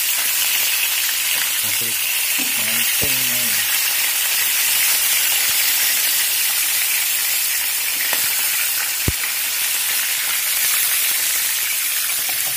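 Fish frying in hot oil in a pan: a steady sizzle. A single sharp click sounds about nine seconds in.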